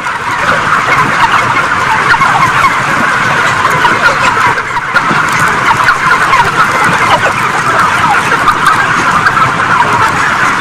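Loud, dense chatter of a crowded flock of broiler chickens: many short clucks and peeps overlapping into one continuous din.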